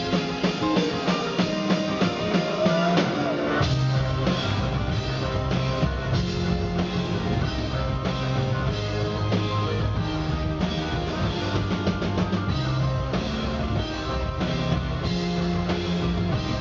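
Rock band playing live with drum kit and guitar, an instrumental stretch without singing. A heavy low end comes in about four seconds in and carries on under the drums.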